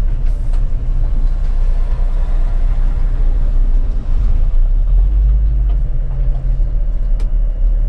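City bus's engine running and its body rumbling as it crawls slowly over a rough, unpaved patch of street. The low drone grows heavier a little past halfway.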